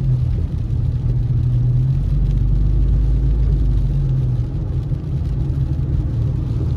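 A car driving on a wet road, heard from inside the cabin: a steady low rumble of engine and tyres, with a faint engine hum over it.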